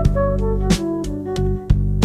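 Instrumental background music with a steady beat: held notes over a bass line, with a drum hit about every two-thirds of a second.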